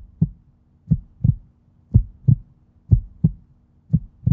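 Heartbeat sound effect: low paired thumps, lub-dub, about one pair a second, over a faint steady low drone.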